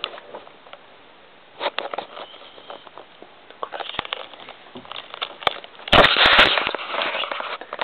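A small dog sniffing and snuffling close up, with scattered light clicks. About six seconds in comes a sudden loud burst of noise lasting about half a second, the loudest thing here, followed by a second or so of noisy commotion.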